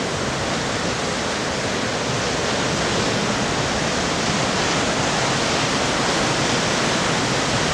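Ocean surf breaking and washing over a rocky reef, heard as a steady, unbroken rush of noise.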